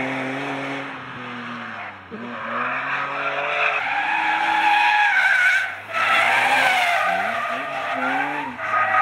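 BMW E46 M3 drift car's engine revving hard, its pitch climbing and dropping several times with sharp falls about two seconds in and near the middle, then quick throttle blips near the end. Tyres squeal through most of the second half as the car slides sideways in a drift.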